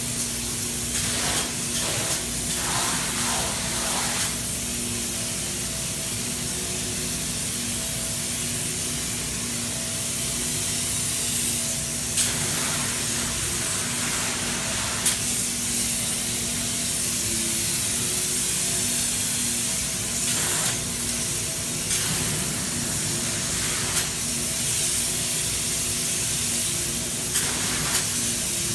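Spray foam gun hissing as closed-cell polyurethane foam insulation is sprayed onto a ceiling, in repeated spurts with a few sharp clicks, over a steady hum.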